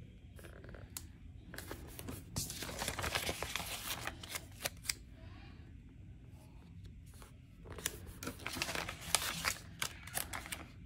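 Paper stickers being peeled from their backing sheet and pressed onto planner pages. Paper rustles and crackles with light taps and clicks, in two stretches: about two seconds in and again about eight seconds in.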